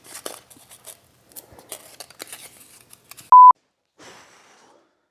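Plastic wrapping crinkling as it is peeled off a black dent-pulling glue stick, then a short, loud single-pitched electronic beep about three seconds in.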